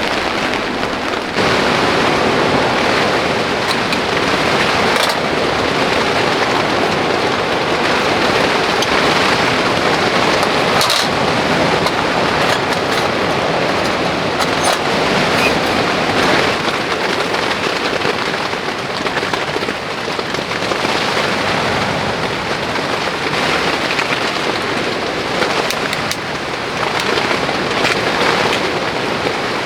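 Heavy rain falling steadily in a mountain storm, a loud continuous hiss of rain with occasional sharper taps.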